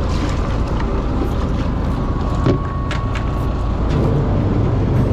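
Fishing boat's engine running with a steady low hum, with a few short knocks and clicks from gear being handled at the bait tank.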